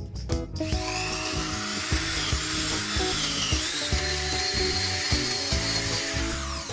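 A power tool runs for about six seconds, starting about half a second in and stopping just before the end. Its high whine slides up and down in pitch as it works. Background music plays throughout.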